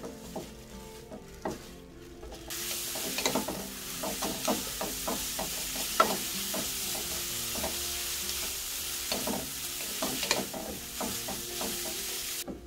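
Blanched dried jae-ssuk (flixweed) greens stir-frying in oil in a nonstick frying pan: a steady sizzle starts about two and a half seconds in, with frequent clicks and scrapes of two wooden spatulas tossing the greens, and cuts off suddenly near the end.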